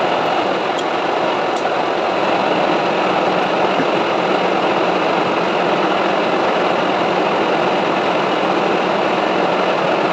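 Metal lathe running steadily while turning a steel shaft, a constant machine hum with cutting noise and no change in pitch.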